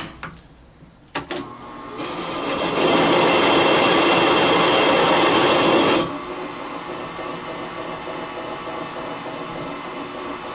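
Serdi 100 spindle driving a spot-facing cutter that trims a freshly installed valve guide to length in a Mopar 318 cylinder head. A few sharp clicks come first; the cut builds about two seconds in and is loudest for about three seconds, then drops suddenly to a quieter steady spinning with a thin high whine.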